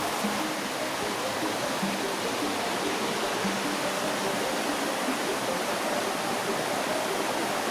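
Steady rush of flowing water, like a creek, with soft background music playing single notes underneath.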